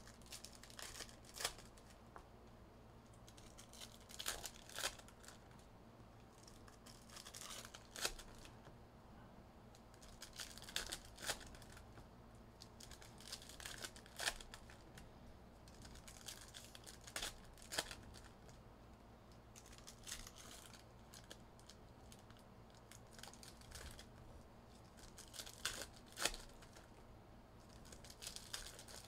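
Faint tearing and crinkling of plastic wrapping as trading card boxes and packs are opened, in short crackly bursts every second or two.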